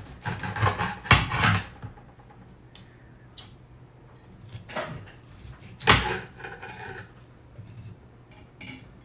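Carving knife and fork clinking and scraping on a glass cutting board while slicing a smoked chuck steak: scraping with a couple of clinks in the first two seconds, single clinks around three and five seconds in, and the loudest clink about six seconds in.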